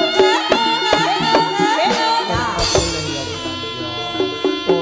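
Live East Javanese jaranan music: a slompret (shawm) plays a wavering melody over kendang drum strokes. A low ringing stroke, like a gong, comes in about halfway through.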